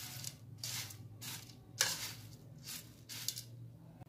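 A metal spoon stirring dry puffed rice in a bowl: a dry rustle with each stroke, about five strokes roughly half a second apart. A low steady hum runs underneath.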